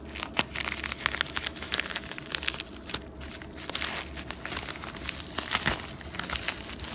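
Plastic padded mailer envelope crinkling and crackling as it is handled and its opened edge is pulled apart, with a run of many small, irregular crackles that thins briefly midway.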